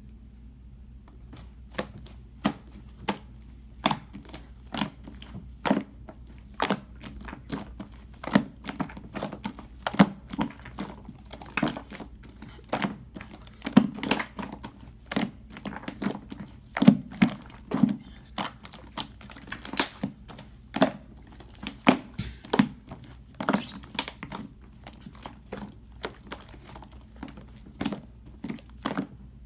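Coiled blueberry slime being pressed and squished by hand, giving sharp irregular clicks and pops, one to three a second, with soft low squelches under them.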